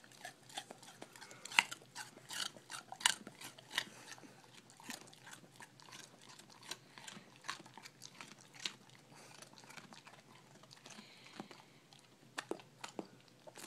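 A dog chewing a crunchy treat: irregular sharp crunches, thicker in the first several seconds and thinning out toward the end.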